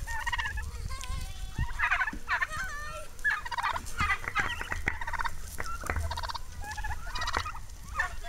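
Flock of domestic turkeys gobbling, many short calls one after another and overlapping.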